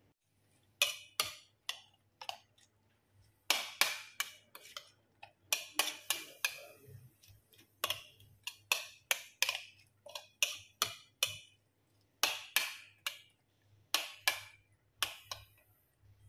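Metal spoon clinking and scraping against a ceramic bowl while stirring chopped onion, tomato and chilli in tamarind water: irregular taps, two or three a second, with a couple of brief pauses.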